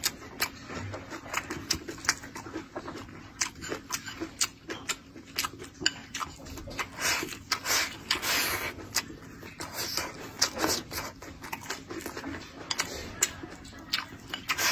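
Close-up eating sounds: wooden chopsticks clicking against a ceramic bowl as rice is shovelled into the mouth, with wet chewing and smacking in irregular bursts.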